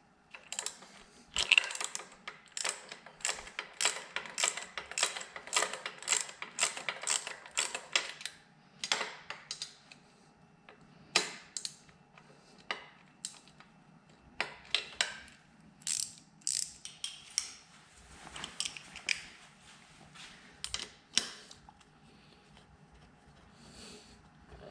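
Hand socket ratchet clicking as loose cylinder head bolts are backed out: a fast, steady run of ratchet clicks for about the first eight seconds, then shorter, scattered runs of clicks.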